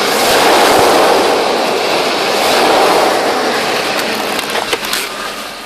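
Mercedes-Benz W140 S500's V8 engine running, heard from under the car, its sound swelling twice as it is revved. Scattered sharp clicks near the end.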